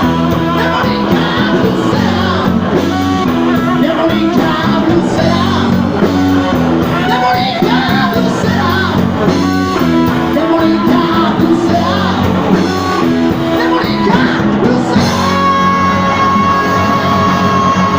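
Live blues-rock band playing, with singing and electric guitar over bass and drums. About three seconds before the end, a single long high note is held steady.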